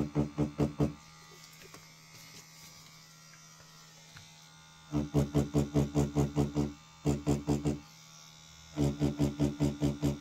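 Pen-style rotary tattoo machine buzzing in stop-start stretches as its needle lines an outline in synthetic practice skin, with a rapid pulsing of about six or seven beats a second. It runs briefly at the start, again from about halfway in, and once more near the end, with a fainter steady hum in the pauses.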